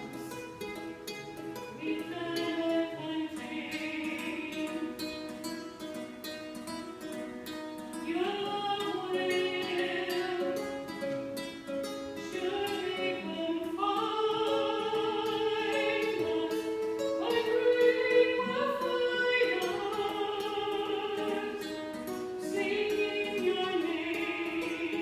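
Small mixed church choir singing a slow contemporary worship song in held chords, accompanied by a steadily plucked acoustic guitar.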